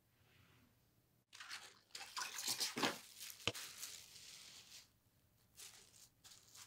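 Thin plastic sheet crinkling and rustling as it is spread over a wet layout of wool, starting about a second in, with a sharp click in the middle. Softer rustles follow as hands press down on the plastic.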